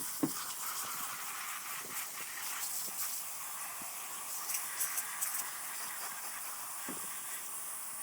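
Hose spraying water onto a battery and its terminals, rinsing off baking-soda paste: a steady hiss of water.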